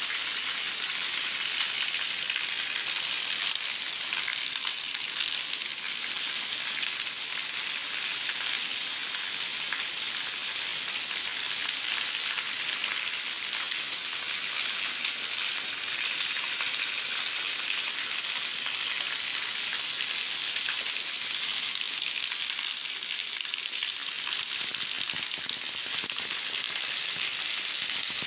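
Steady monsoon rain falling on a wet concrete courtyard, an even hiss.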